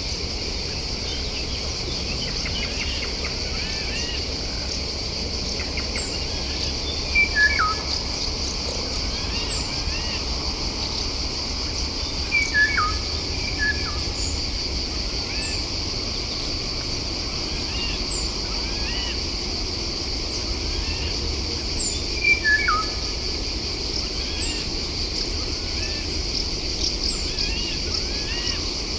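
Wild birds calling over a steady insect drone: a thin, high note sliding down every few seconds, scattered short chirps, and louder calls that drop in pitch, heard about a quarter of the way in, near the middle and again later.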